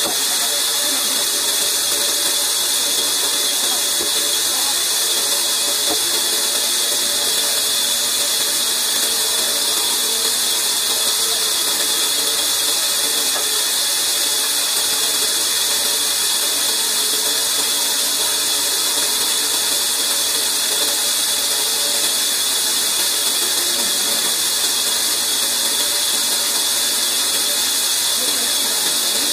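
Large vertical bandsaw running and ripping a log lengthwise, a constant loud hiss of the blade cutting wood over a steady machine hum.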